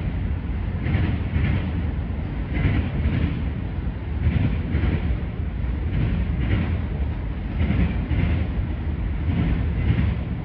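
Freight train of autorack cars rolling past: a steady low rumble of steel wheels on rail, with the clickety-clack of wheels crossing a rail joint coming in pairs roughly every one and a half to two seconds as each car's trucks pass.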